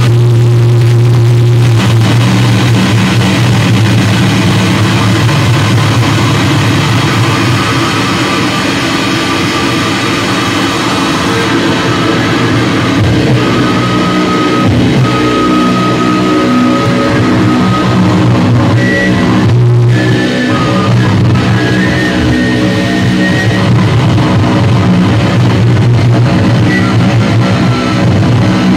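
Loud live noise rock from distorted electric guitars played through an amplifier: a dense wall of sound over a held low note, with thin steady high tones above it.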